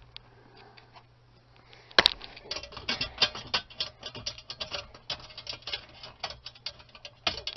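Hand ratchet clicking quickly as it runs 5/16-inch hex-head bolts down into the dash's knee panel, starting with a sharp click about two seconds in.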